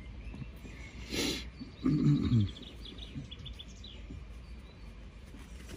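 A man's short wordless vocal sound, falling in pitch, just after a brief breathy rush of air about a second in. Faint high bird chirps follow in quick succession, over a low steady rumble.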